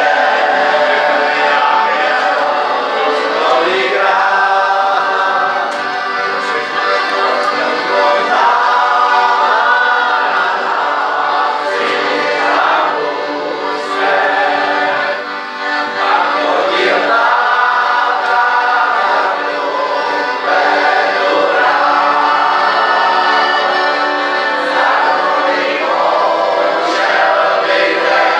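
Piano accordion playing a song while a group of voices sings along together.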